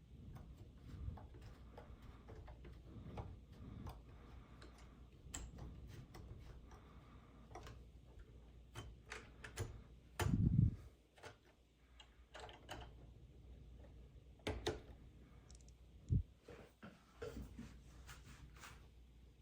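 Hard plastic toys being handled: scattered clicks and light knocks, with one louder, lower thump about ten seconds in.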